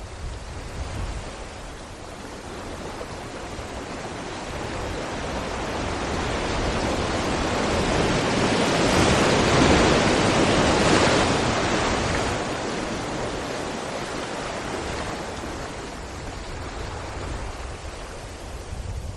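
Sea waves breaking against rocks: a rush of surf that swells over several seconds, peaks near the middle, then slowly dies away over a low rumble.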